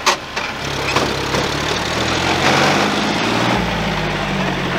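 Two diesel tractor engines, a John Deere 5036 D and a Hindustan HWD50, running hard under load as they pull against each other in a tug of war, the engine note building about a second in. A short high sound sliding down in pitch comes at the very start.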